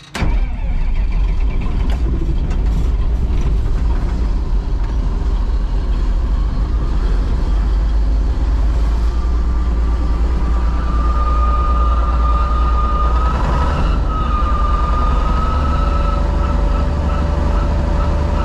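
Combine engine starting almost at once when the key is turned, then running steadily with a deep rumble. About nine seconds in, a high squeal joins and wavers in pitch, and a second, lower steady whine comes in near the end.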